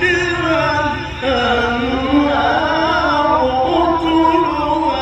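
Male voice in melodic, ornamented Quran recitation (tajwid), drawing out long phrases that waver and turn in pitch, with a brief break about a second in before the next phrase.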